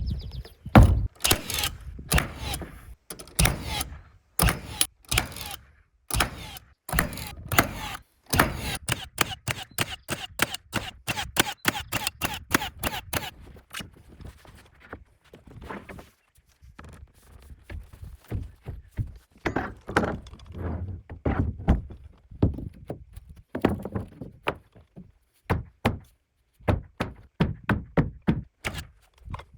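Repeated hammer blows on the edge of a wooden subfloor sheet, knocking it into place. The strikes come in quick succession for the first half, then thin out to spaced single knocks.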